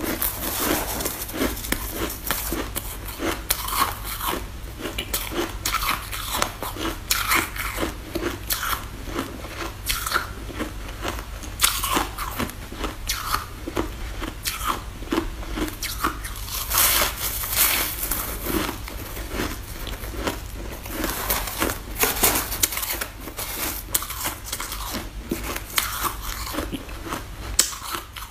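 Packed white snow ice being bitten and chewed: dense, irregular crisp crunching.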